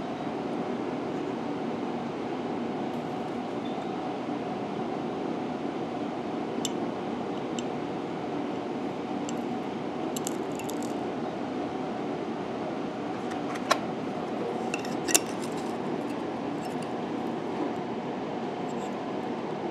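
Steady room hum with a scattering of small, sharp metallic clicks and ticks from about six seconds in, the two loudest in the last third. The clicks come from a tiny brass photo-etch part being handled and folded on an aluminium photo-etch bending tool.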